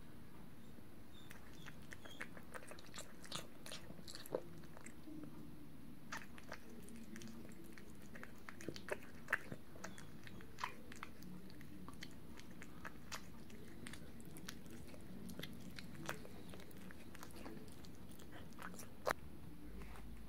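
A cat eating food from a small ceramic dish, biting and chewing with irregular clicks and crunches, a few of them sharper and louder.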